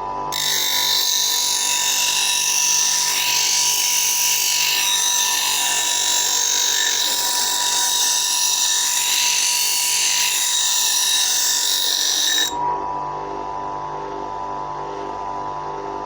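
Bench grinder running with a steady hum, and a loud, high hiss of a steel scissor blade being ground against the wheel. The grinding stops suddenly about twelve seconds in, leaving the grinder spinning.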